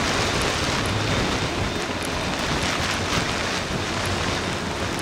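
Steady rushing noise of wind and heavy rain on the microphone, mixed with engine noise from the taxiing Airbus A300-600ST Beluga.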